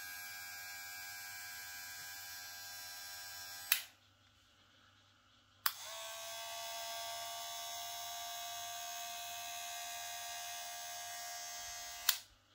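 Two cordless hair clippers, a Cronier CR11 and an OVLUX LX 9905, run one after the other for a sound check. The first is running with a steady buzzing whine and clicks off about four seconds in; after a short quiet gap the second clicks on, its pitch settling within a moment, runs steadily and a little louder, and clicks off near the end.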